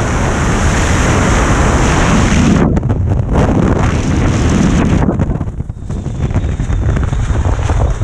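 Freefall wind blasting the skydiver's camera microphone, easing off about five to six seconds in as the parachute opens, then lighter, gusty wind under canopy.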